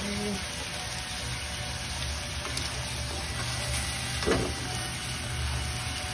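Seafood and vegetables sizzling steadily in a nonstick frying pan over a gas burner, with a single knock about four seconds in.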